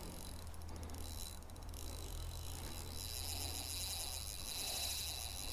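Crickets trilling: a high, rapidly pulsing trill that grows louder about three seconds in, over a low steady rumble.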